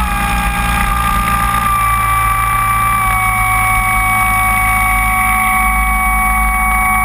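Motor and propeller of a large radio-controlled Cessna 185 floatplane running steadily, heard from on board, with a steady whine whose pitch eases slightly lower about three seconds in as the model moves on the water.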